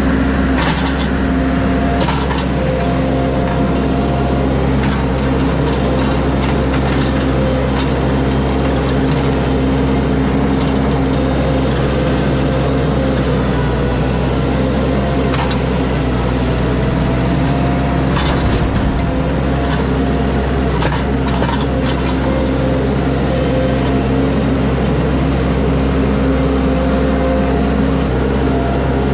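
A work machine's engine running at a steady, constant speed, with a few sharp cracks of wood or branches breaking.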